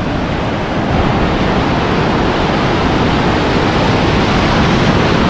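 Ocean surf breaking and washing in over the shallows, a steady rushing hiss that grows louder about a second in.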